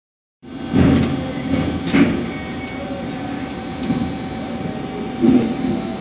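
Sawmill machinery running steadily with a constant hum, swelling louder about a second in, at two seconds and again near the end, with several sharp clicks scattered through it.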